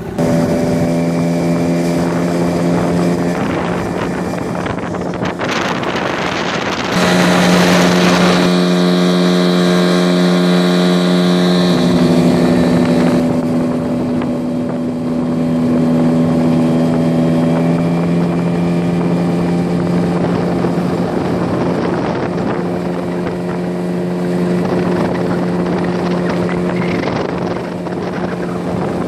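Yamaha 9.9 GMHS two-stroke outboard motor running steadily under load, pushing a loaded inflatable boat at cruising speed during the last stage of its break-in. There is wind rush on the microphone, and the engine note gets abruptly louder about seven seconds in.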